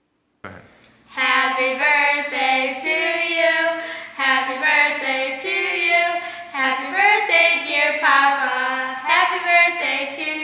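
Girls singing a song together, starting about a second in, with held notes that step up and down in pitch.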